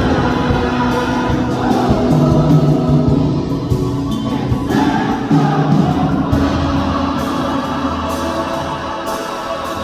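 A choir singing, with held notes that change pitch every second or so.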